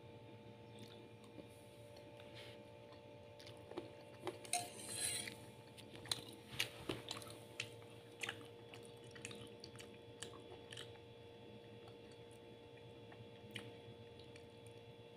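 A black plastic spoon clicking and scraping against a plate of rice: a cluster of sharp clicks and a short scrape about four to eight seconds in, over a steady low hum.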